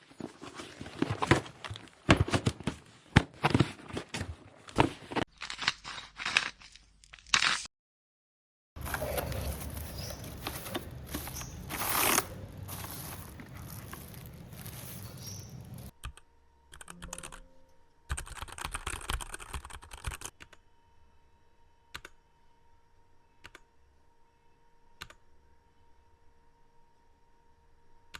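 Handling of a keyboard's packaging during an unboxing: irregular clicking and crackling, then a longer stretch of rustling and tearing. Near the end it thins out to a few separate clicks over a faint steady hum.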